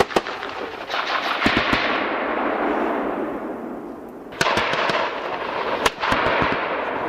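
Gunfire from armoured vehicles' guns: a handful of sharp shots at uneven intervals, the loudest right at the start and about six seconds in, over a steady rushing noise.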